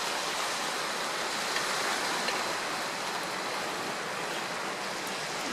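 A steady rushing hiss with no distinct events, even throughout.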